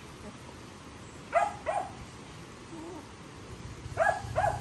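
Two quick pairs of short, sharp animal calls, one pair about a second and a half in and the other near the end.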